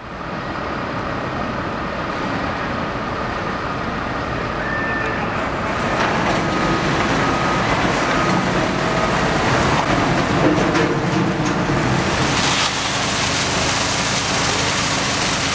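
Steady outdoor traffic and vehicle-engine rumble. It grows a little louder partway through, and a brighter hiss joins it about twelve seconds in.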